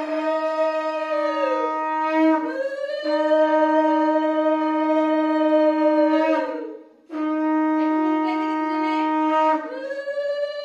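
Conch shell (shankha) blown in several long, loud blasts. Each blast sags in pitch as it tails off, with a short break for breath about seven seconds in.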